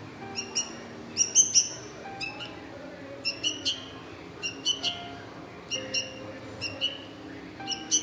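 Baby bulbul chick giving short, sharp begging chirps in quick groups of two or three, about once a second, while it is hand-fed from a stick. The loudest group comes about a second and a half in.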